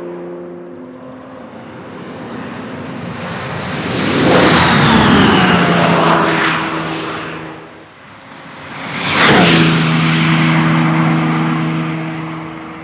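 Audi R18 e-tron quattro LMP1 prototype with its 4.0-litre V6 TDI diesel, passing at speed twice: a first pass about four seconds in with a falling whine as it goes by, then a sharper, louder pass about nine seconds in that fades away.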